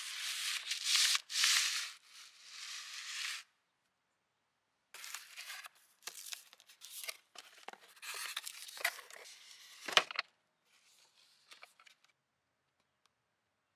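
Cardboard shipping box being handled and opened. There is a loud, high scraping noise for about three seconds, then after a pause the rustling and rubbing of cardboard flaps, with a single sharp knock about ten seconds in.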